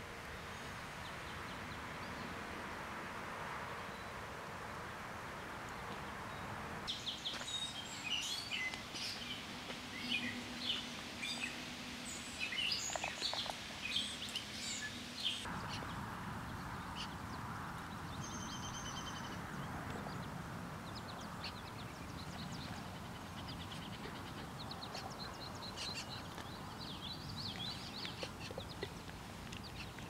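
Outdoor ambience with a steady hiss. About seven seconds in, birds start calling in quick, short, high chirps and chips, on and off, with a brief whistled note near the middle.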